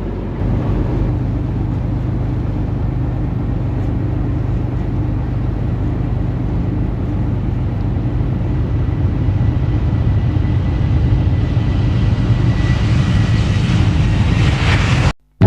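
A vehicle's steady running rumble with a low hum, building a little toward the end with a faint high whine, then cutting off suddenly.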